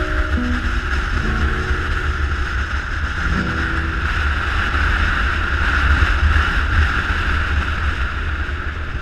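Onboard sound of a motorcycle riding at speed: a steady rush of wind over the camera microphone with a low rumble of engine and road beneath.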